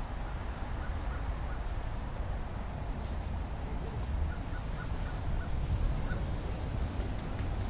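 Wind rumbling on the microphone outdoors, with a few faint short bird chirps about four to five and a half seconds in.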